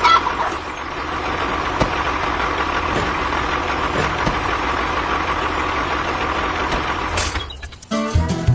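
A model construction vehicle's motor runs steadily with an engine-like hum. Near the end there is a brief sharp noise and the hum cuts out, and music begins.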